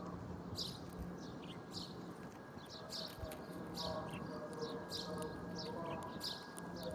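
Small birds chirping: short, high chirps repeating roughly every half second to a second, over a faint steady low hum.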